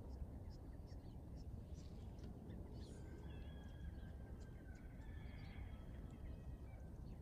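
Outdoor ambience: a low, steady rumble of wind on the microphone, with small birds chirping and whistling faintly, the calls clustering in the middle of the stretch.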